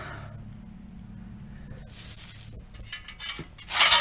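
Metal parts clinking and scraping as they are handled, with a louder rattling clatter near the end, over a steady low hum.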